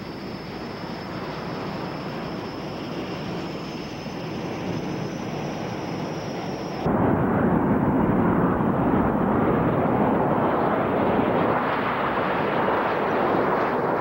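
Canadair CT-114 Tutor jets' turbojet engines: first a steady high whine over a rush of jet noise, slowly growing louder; about seven seconds in it changes abruptly to a louder, deeper jet noise as the formation takes off.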